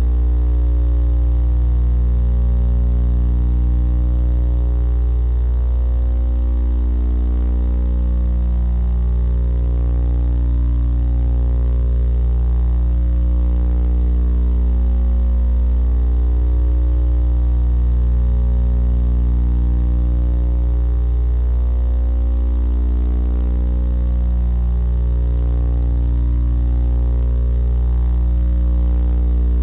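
Steady electrical hum picked up in a nest-box camera's audio, a low drone with a stack of even overtones that swells and dips slightly about every four seconds.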